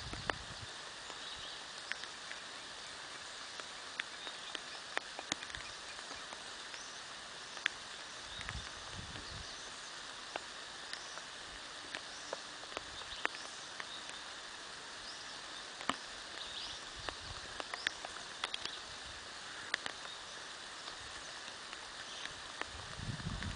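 Steady hiss of light rain with scattered sharp drip taps, and birds chirping in the background. A brief low rumble comes about nine seconds in.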